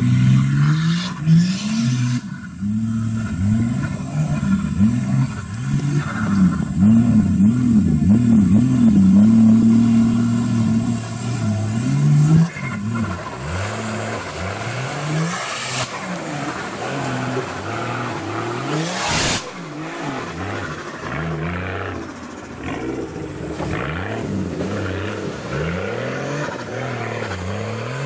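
Off-road 4x4's engine revving up and down again and again as it works through deep mud, loudest in the first dozen seconds, with a couple of sharp knocks later on.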